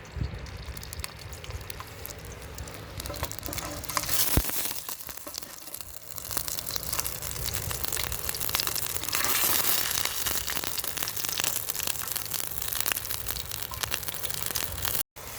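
Bacon frying in a stainless steel mess tin over a wood fire: a dense crackling sizzle that gets louder about four seconds in.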